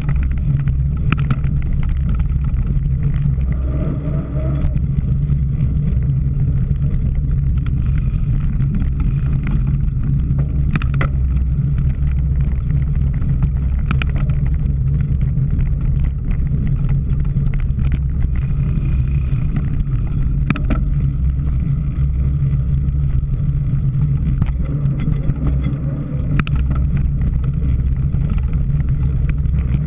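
Steady low rumble of wind buffeting and tyre noise from a cyclocross bike being ridden, with a few sharp clicks and rattles spread through it.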